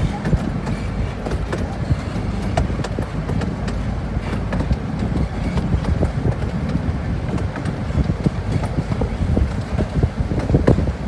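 Miniature park railroad train rolling along the track, heard from aboard: a steady rumble with many irregular clicks and knocks from the wheels and rails.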